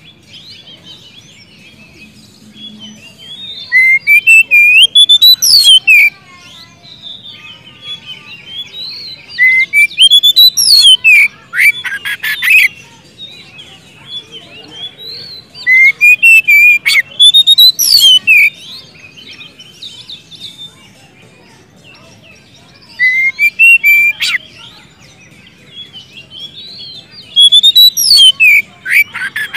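Oriental magpie-robin singing: five loud bursts of whistled phrases with fast rising and falling sweeps, a few seconds apart, with soft twittering between. It is the full, loud song of a bird in top form, calling out to rivals.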